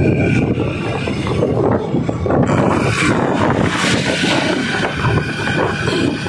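Motorbike running along a road, its engine and road rumble heard from the pillion seat, with wind buffeting the microphone and a rush of wind hiss about halfway through.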